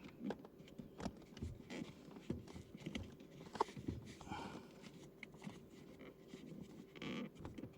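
Faint scattered clicks and short scrapes of a pry tool working the rubber M Performance pedal pad's last edge over the metal brake pedal, over a faint steady hum.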